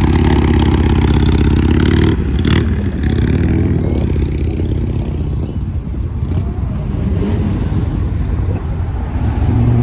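A loud vehicle engine running with a strong low drone for about two seconds, then settling to a rougher, somewhat quieter rumble.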